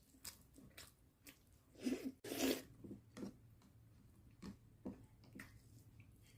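Close-miked chewing and mouth sounds of someone eating chicken curry with poori: irregular wet smacks and bites, loudest about two seconds in.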